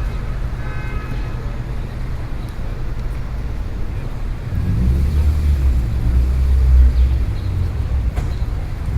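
City street traffic: a steady low rumble of passing engines and tyres. A louder, deeper engine rumble swells from about halfway, peaks near the end, then eases off.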